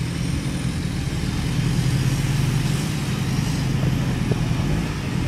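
Vehicle engine running steadily with tyre and road noise, heard from a vehicle on the move; a constant low hum under an even rush.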